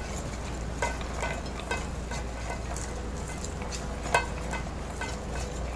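Wire balloon whisk beating a thick flour batter in a stainless steel bowl: the wires scrape and click against the metal about twice a second, one stroke a little past four seconds in louder than the rest.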